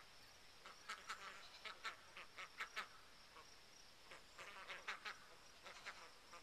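A small flock of Swedish Blue and Chocolate Indian Runner ducks giving faint, short quacks. One run of calls comes about a second in and another at around four to five seconds.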